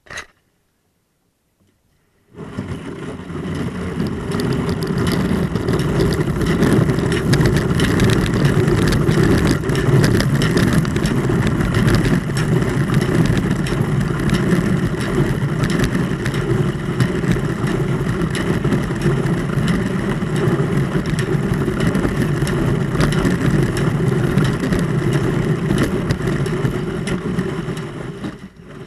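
Kayak hull pushing through thin sheet ice: a loud, continuous scraping rumble that starts about two seconds in, after a short click.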